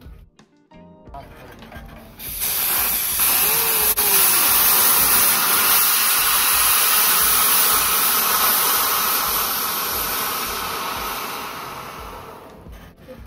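Yakipon pressure chestnut-roasting machine venting steam from its brass nozzle: a loud hiss that starts suddenly, holds steady, then fades away over the last few seconds. This is the built-up pressure in the roasting drum being released.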